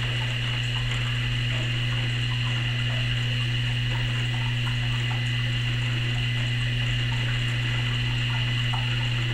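Reef aquarium sump equipment running, its pumps and protein skimmer giving a steady low hum with a faint high whine over it, and water splashing and trickling through the sump.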